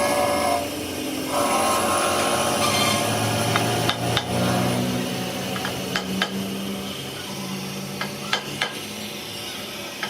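Tools being worked on metal in a workshop: a handful of sharp knocks and taps, in ones and pairs, over a low steady hum.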